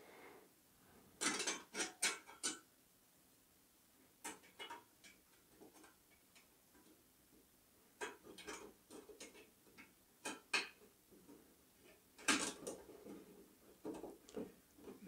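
Thin sheet-metal kit parts being handled and slotted together by hand: light metallic clicks and rattles in several short clusters, with quiet gaps between.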